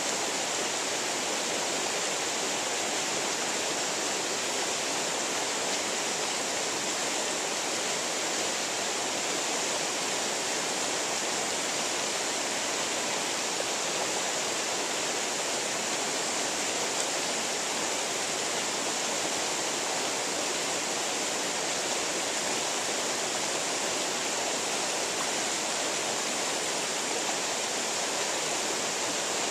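A shallow, rocky creek rushing over stones, a steady, even wash of running water.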